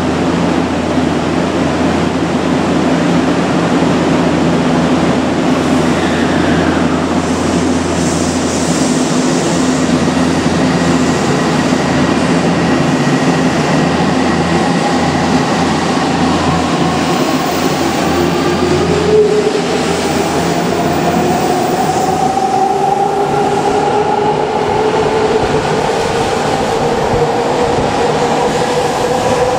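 Odakyu 8000 series electric train standing at an underground platform with a steady low hum, then pulling out and accelerating, its motor whine rising in pitch over the last third.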